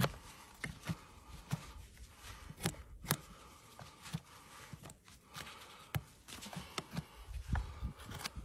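Irregular sharp clicks and knocks of a horse's hoof being handled and worked on a metal hoof stand, about one or two a second.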